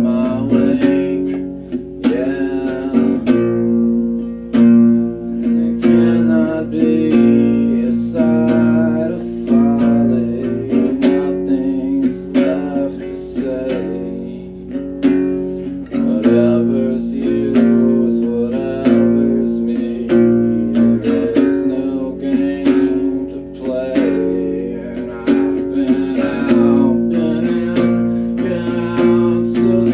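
A man singing while strumming an acoustic guitar at a steady rhythm.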